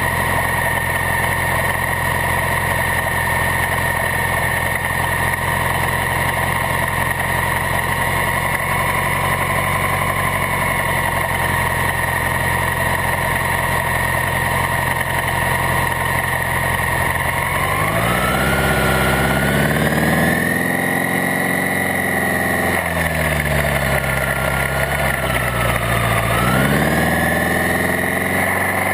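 Maverick flying car's rear-mounted engine, heard up close while driving on the road: a steady engine note for the first two-thirds, then rising in pitch about 18 seconds in as it speeds up, dipping and rising again near the end.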